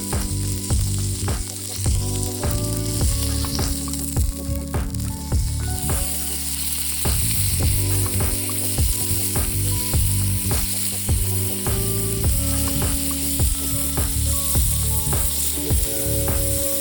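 Meat sizzling and frying on a small steel griddle plate over a wood fire, the sizzle growing louder about six seconds in. Soft background music plays under it.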